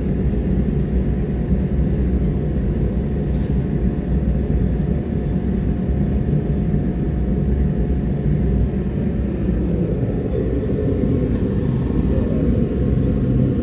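Forge running with a steady low rumble while a fluxed billet heats toward welding heat.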